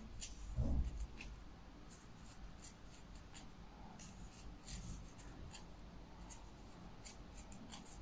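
Faint rustling and small ticks of a crochet hook pulling cotton yarn through single crochet stitches, with one soft low thump just under a second in.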